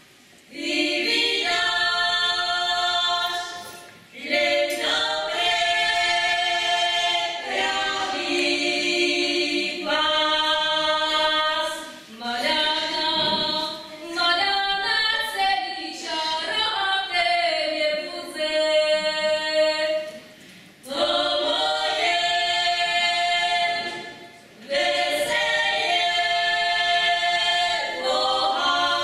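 A small group of women singing a folk song unaccompanied, in long phrases with short breaks between them.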